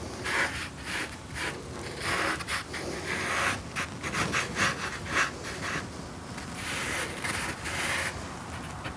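Soft pastel stick scraping over heavy, toothy watercolour paper in many quick, irregular strokes, a dry, abrasive rubbing that stops about a second before the end.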